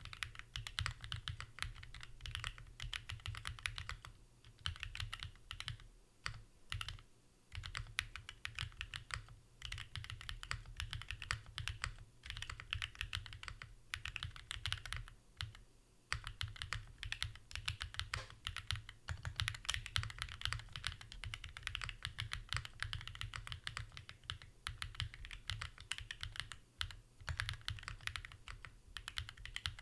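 Fast continuous typing on a gasket-mounted 65% mechanical keyboard (Haven65) with Designer Studio Starry switches and GMK Shoko ABS keycaps: a dense run of key clicks and bottom-out clacks, broken by a few short pauses.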